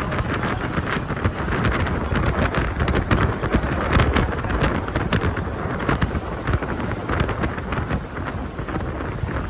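Wind buffeting the microphone over the running noise of a moving bus, with frequent short rattles and knocks.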